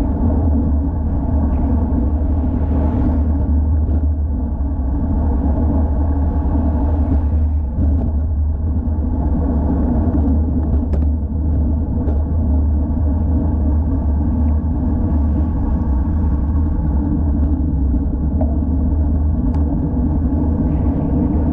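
Steady low rumble of wind buffeting an action camera's microphone, together with tyre and road noise, from a road bicycle riding along, with a few light ticks.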